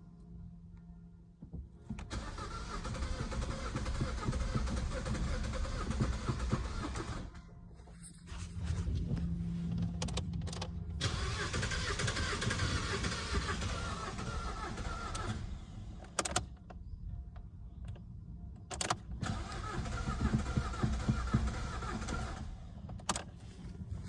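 Opel Astra H 1.7 diesel being cranked by its starter in three long attempts of several seconds each, with short pauses between. The engine turns over but does not fire: a diesel that won't start.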